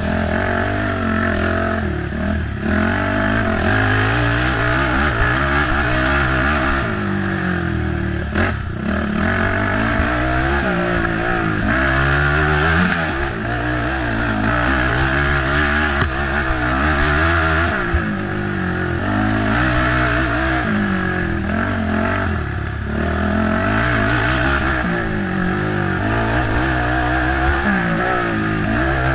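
Race ATV engine revving up and dropping off again and again as it is ridden hard over rough ground, with the pitch climbing and falling through gear changes. A sharp knock sounds about eight seconds in.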